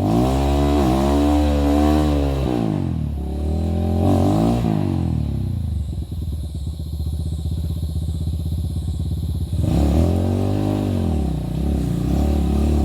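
Dirt bike engine revved up and down in repeated swells as the rider tries to climb it over a log, with a few seconds of steady low chugging in the middle before it revs again.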